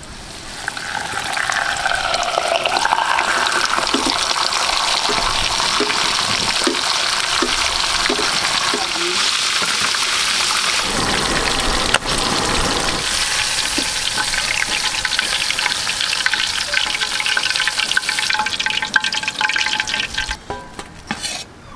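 Cornstarch-coated lapu-lapu (grouper) deep-frying in hot cooking oil: a loud, steady sizzle that swells over the first second or two and drops away near the end.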